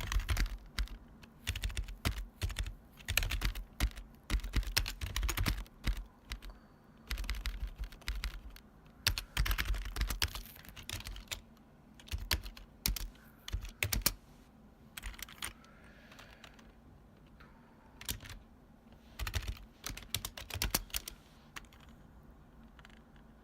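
Typing on a retro long-travel keyboard, the keys clacking loudly in quick runs broken by short pauses. The keystrokes thin out to a few stray clicks after about fourteen seconds, with one more short run a little later.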